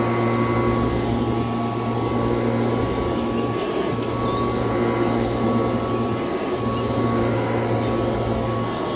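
1986 Kirby Heritage II upright vacuum running and being pushed back and forth over a rug: a steady motor hum with a thin, high fan whine and a gritty 'crunch' in its sound. The low hum dips briefly three times as the strokes change.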